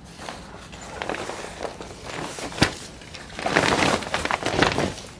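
Nylon travel bag rustling and crinkling as a folded transport chair is pushed into it, louder in the second half, with one sharp knock about two and a half seconds in.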